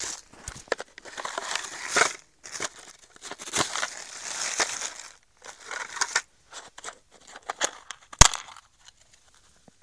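Plastic bag crinkling and snow crunching as a plastic geocache box is handled and pushed into a snowy hollow under a stone, in irregular bursts, with one sharp knock about eight seconds in.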